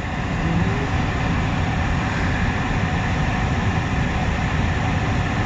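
Steady rumble of a freight train's cars rolling past on the rails as the end of the train goes by.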